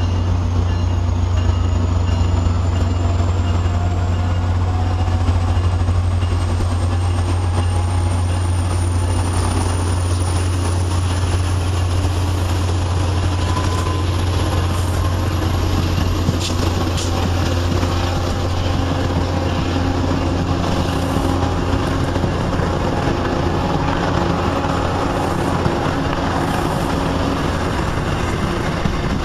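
MBTA MP36PH-3C diesel-electric locomotive hauling a commuter train of bilevel coaches past, with a steady deep engine-and-rail rumble. A slowly rising whine runs through it, and a few wheel clicks come in the second half.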